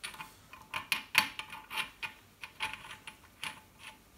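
Light metallic clinks and taps from small steel parts being handled on a lathe headstock, a string of short sharp clicks at uneven intervals.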